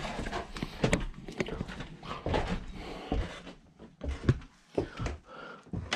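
Footsteps and irregular knocks on bare wooden stairs and floorboards.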